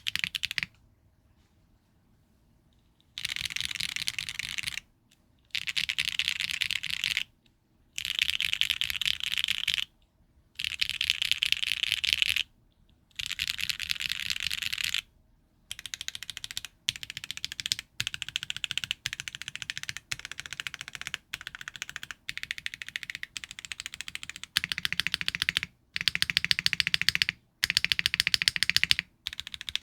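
Typing on a custom mechanical keyboard with HMX Martini V2 rail-bottom-out linear switches, a carbon fiber plate and no foam. The typing comes in runs of fast key strokes a second or two long with short pauses between, and the strokes are more spaced out in the second half.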